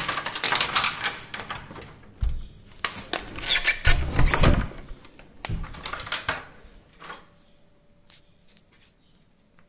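A key rattling and turning in the lock of a wooden door with a metal lever handle, then the door being opened: a run of clicks, knocks and jangles that dies down after about six seconds.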